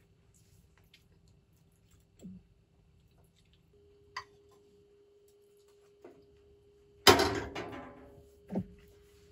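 Metal fork clinking a few times against a frying pan while eating, over a faint steady hum. About seven seconds in, a sudden loud noisy burst that fades over about a second, then a short thump.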